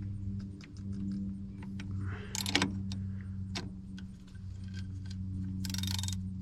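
Hand tools clicking and clinking on metal as bolts are tightened on the truck, with two short, louder noisy bursts, one about two and a half seconds in and one near the end, over a steady low hum.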